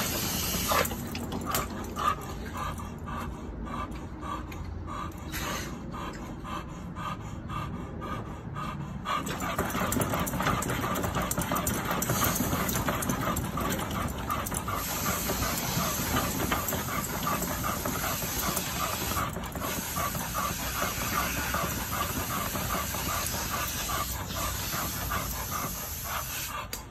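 American pit bull terrier panting rhythmically as it walks on a dog carpet-mill treadmill, with the belt running underneath. The panting gets louder about a third of the way in.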